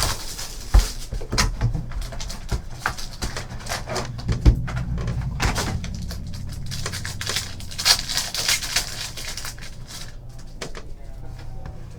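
Trading-card pack wrappers crinkling and tearing and cards being handled: scattered clicks and rustles, with a longer rustle about eight seconds in, over a low steady hum.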